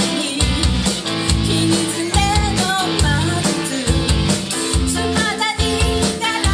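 Live pop-rock band playing: drum kit, bass, electric guitar and saxophone, with a woman singing the lead melody.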